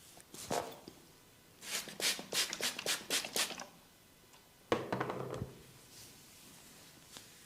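Close-miked rubbing and scratching of fingers during an ear massage: a quick run of about eight sharp strokes about two seconds in, then a louder, sudden rub near five seconds.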